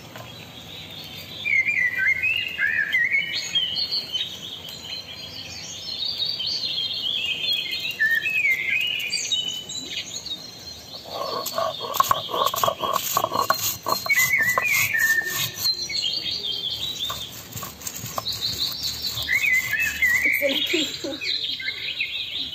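Small birds chirping and twittering repeatedly. About halfway through, a stone grinding pin is rolled and scraped over a flat grinding stone (shil-nora), crushing dried chillies into a bhorta, a rough rasping clatter for a few seconds.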